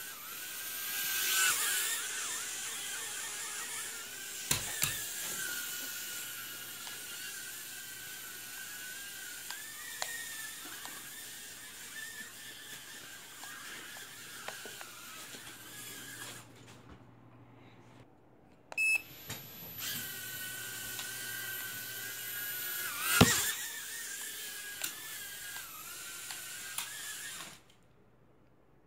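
Tiny toy quadcopter's motors whining at a high, wavering pitch. The whine cuts out for about two seconds past the middle, starts again after a short beep, and stops near the end. Two sharp knocks sound, the louder one about two-thirds of the way through.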